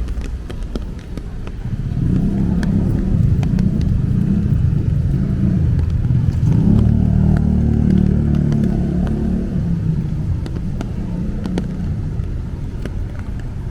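A motor vehicle passing close by: its engine grows louder from about two seconds in, is loudest around the middle, and fades away near the end.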